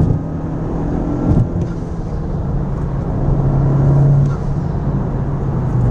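Honda Civic Type R's turbocharged 2.0-litre four-cylinder, fitted with a Mishimoto cold air intake, pulling at a steady pitch as heard from inside the cabin over road noise. There is a short thump about a second and a half in.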